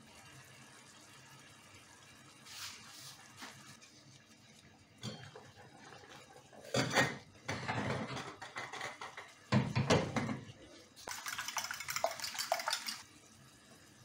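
Kitchen cookware sounds: a wooden spatula stirring and scraping in a frying pan of thick sauce, with clattering knocks of metal pots and pans, the loudest about seven and ten seconds in. A burst of hissing runs for about two seconds near the end.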